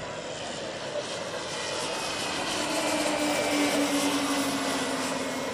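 Two 1:4-scale Pilatus PC-21 model airplanes, each powered by a Kingtech K60 model turboprop, flying past in formation: a steady turbine whine and propeller hum that grow louder toward the middle and ease off near the end, dropping slightly in pitch as they pass.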